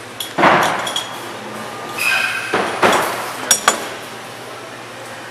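Metallic clinks and knocks with short rushing bursts over a steady low machine hum, around a Haas VF-3YT vertical machining center; two sharp clicks about three and a half seconds in.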